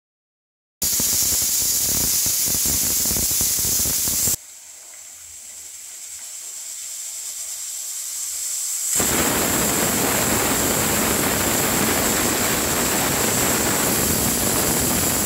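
Aluminium pressure cooker whistling: the weight valve vents steam in a loud, steady hiss with a thin high whistle, a sign the cooker has come up to pressure. About four seconds in it drops to a quieter hiss that builds steadily, and the full whistle returns about nine seconds in.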